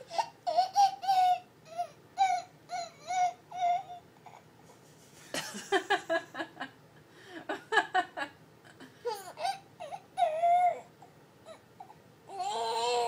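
Baby making a string of short, high-pitched whimpering cries, several a second, with a brief pause partway through before more come in clusters.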